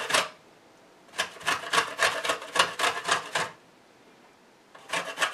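Lemon rubbed in quick strokes across the shredding side of a metal box grater, rasping about four times a second, shredding off the yellow peel. The strokes start about a second in, pause for over a second while the lemon is turned, and start again near the end.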